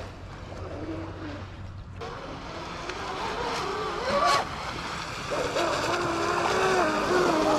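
Electric RC speedboat running across the water, its motor whine rising and falling in pitch with the throttle, with a quick surge about four seconds in and running louder toward the end.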